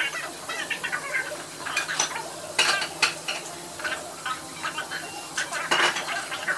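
Dishes and utensils clattering on a table, a few sharp clinks standing out about two and a half, three and six seconds in, over faint high chirping sounds.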